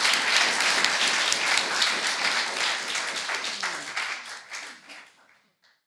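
Audience applauding, a dense patter of many hands clapping that fades away to silence over the last couple of seconds.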